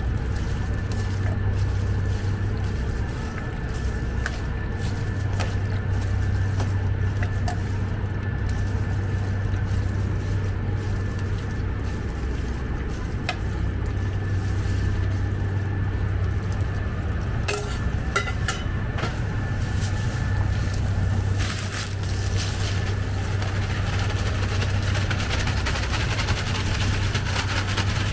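Steady low hum of kitchen machinery, with a few light clinks of a utensil against a steel bowl about two thirds of the way through and rustling of a plastic bag near the end as flour is poured.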